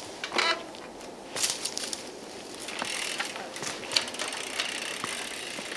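Mountain bikes rolling slowly on a dirt trail: the rear freehub clicks as the wheels turn without pedalling, with tyres scuffing the dirt and a few scattered clicks.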